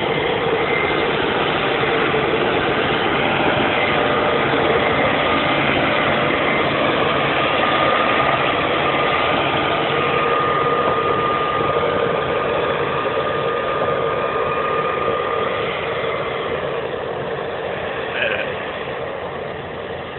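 Claas Lexion 580 combine harvester running under load while harvesting wheat: a steady engine and machinery drone with a thin steady whine over it through the middle. It grows fainter in the last few seconds as the machine moves away, with one short knock near the end.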